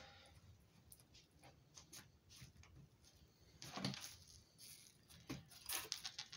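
Faint, scattered scrapes and taps of a fillet knife and hands working a coho salmon fillet on cardboard as its skin is cut away. The clearest comes a little under four seconds in, with a few more near the end.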